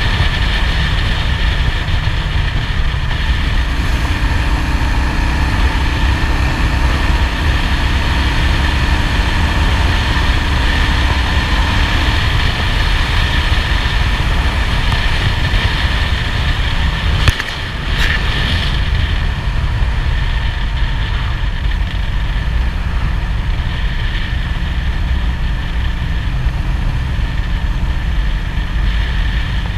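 Cruiser motorcycle engine running steadily at road speed, with wind and road noise on a handlebar-mounted camera. A single sharp knock sounds a little past halfway.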